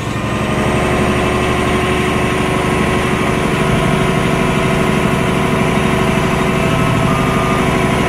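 Caterpillar D8T dozer's diesel engine running steadily, heard from inside the cab, with the transmission in reverse.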